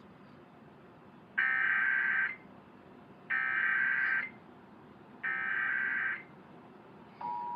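Emergency Alert System SAME header: three roughly one-second bursts of harsh digital data screech about two seconds apart, marking the start of an EAS Required Monthly Test. Near the end, the EAS attention signal begins as a steady two-tone beep.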